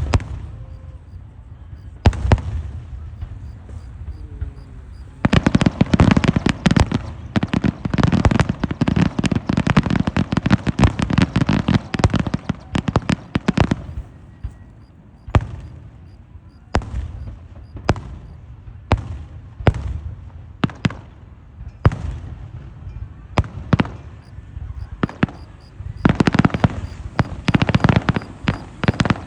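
Fireworks going off: a dense run of rapid cracks and bangs like a firecracker string, then scattered single bangs, and another quick flurry of cracks near the end.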